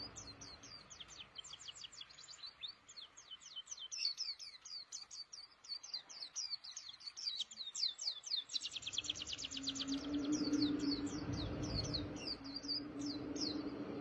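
White-eye (pleci, Zosterops) singing a long, fast song of short high chirps that each slide down in pitch. The notes pack into a rapid trill about two-thirds of the way through.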